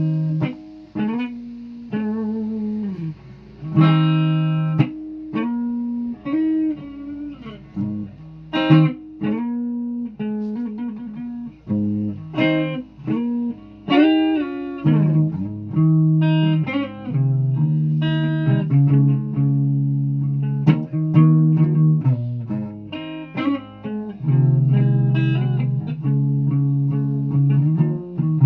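Guitar being played: single plucked notes and chords, each struck and left to ring, with some notes bent up and down in pitch.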